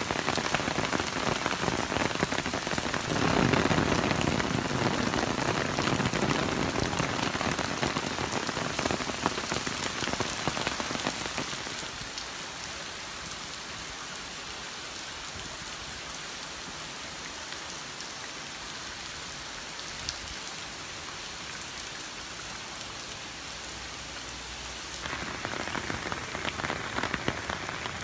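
Heavy typhoon rain falling and pattering on wet pavement as a dense, steady hiss. It is heavier with a deeper surge about three seconds in, softer from about twelve seconds, and heavier again near the end.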